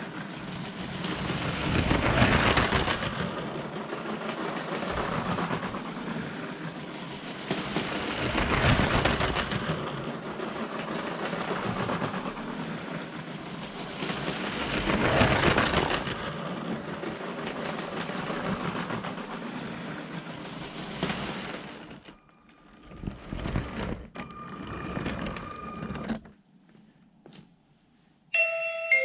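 LEGO train running on plastic track: a steady motor whirr and wheel clatter that swells about every six seconds, then breaks up and stops a little over twenty seconds in as the train pulls into the platform. Near the end a few clear steady tones begin, like a station chime.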